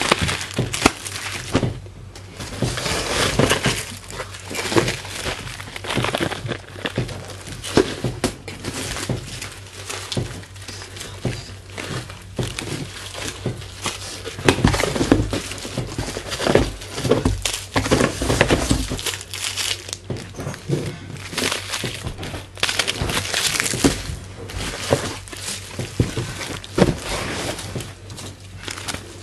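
Packaging crinkling and rustling as a parcel is unboxed, with frequent knocks and clatter of items being handled, over a faint steady hum.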